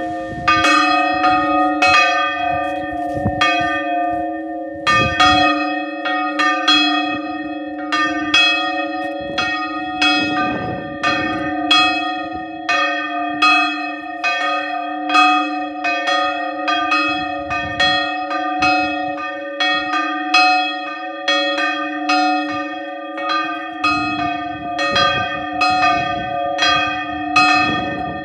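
Several church bells rung continuously, struck over and over at a few strokes a second, their tones overlapping and sustaining between strokes.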